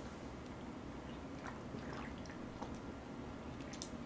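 Faint swallowing and small wet liquid clicks as a drink is gulped from a can.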